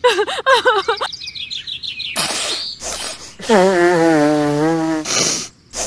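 Squeaky, sped-up cartoon character voices chattering in gibberish, with a whoosh about two seconds in and another near the end; a longer, lower wavering voice runs through the second half.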